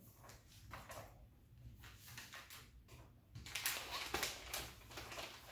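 Packaging rustling and crinkling as packaged craft supplies are handled and moved about on a table, in short irregular strokes that grow busier and louder about three and a half seconds in.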